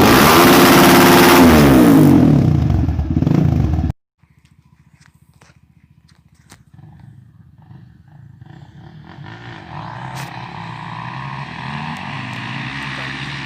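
A very loud burst with its pitch sliding downward cuts off abruptly about four seconds in. Then a single-cylinder trail motorcycle engine comes in faintly and grows steadily louder.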